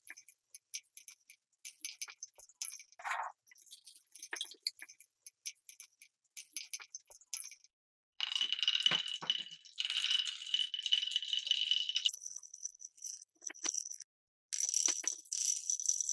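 Marbles on a wooden marble run, clicking and clattering in quick irregular taps. From about eight seconds in, marbles roll continuously through the track with a steady whirring hiss that breaks off briefly near the end.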